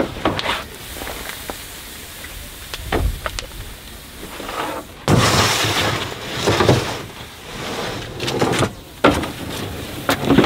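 Heavy steel clambake trays being spun and slid over the fire pit: metal scraping and several knocks. About five seconds in comes a sudden rush of noise lasting a couple of seconds, as steam pours off the seaweed-covered tray.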